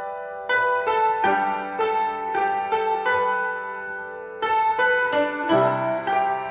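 Background music: a light melody of quick, ringing notes that pauses briefly about four seconds in, with a low bass note joining near the end.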